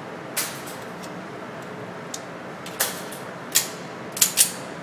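Handgun shots on an indoor firing range: about five sharp reports at uneven intervals, the last two in quick succession near the end.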